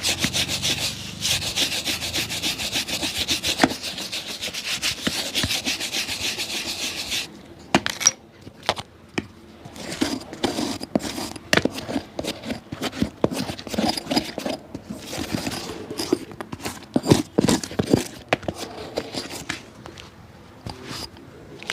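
Fast back-and-forth rubbing on a shoe, as in sanding or hard brushing, for about seven seconds. It stops suddenly, and irregular scrapes, clicks and knocks of handling follow.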